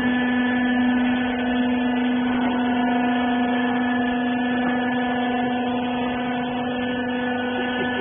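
Rags baler machine's motor running with a steady, even hum.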